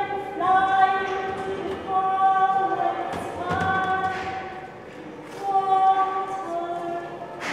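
Singing: a run of long, held notes, one after another, with no instruments prominent. A couple of soft thuds come a little past the middle.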